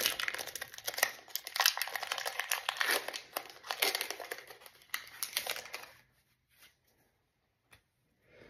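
Foil Pokémon TCG 151 booster pack wrapper being torn open and crinkled in the hands, a dense run of crackles and rips that stops about six seconds in.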